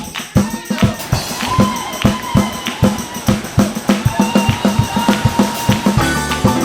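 Music with a steady drum and tambourine beat and a held melody line over it.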